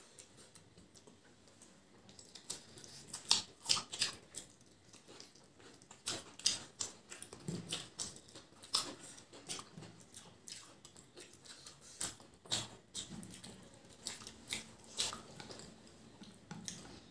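Two people eating biryani by hand: irregular wet chewing and lip-smacking clicks, starting about two seconds in, with the soft squish of fingers working rice on the plates.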